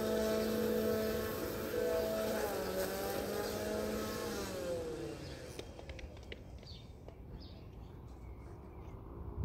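A motor vehicle's engine hum, steady at first, then falling in pitch and fading out about halfway through. Faint short high chirps follow.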